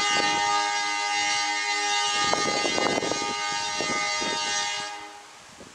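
Diesel locomotive horn sounding one long, steady blast that fades out about five seconds in, with some low rumble and knocks underneath.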